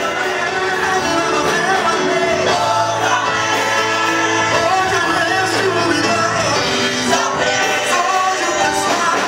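Live gospel singing into microphones, a choir and a male lead voice, over instrumental backing, amplified through a PA.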